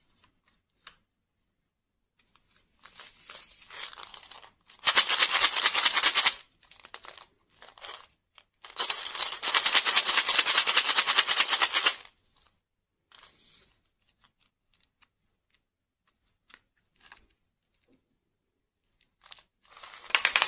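Paper candy tubes handled and shaken close to the microphone: two long bursts of dense crackling and rattling. Near the end, small sugar-coated chocolate candies begin spilling out of a tube onto a plastic tray.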